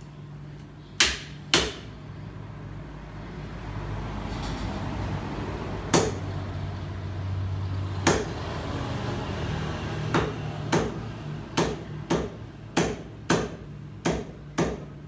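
A heavy butcher's knife chopping pork on a wooden chopping block: a few single chops in the first half, then a quick run of chops at about two a second over the last five seconds.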